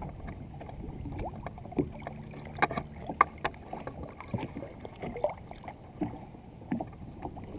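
Lake water splashing and lapping against a bass boat's hull as a bass is lowered by hand into the water and released. A few sharper splashes stand out a few seconds in.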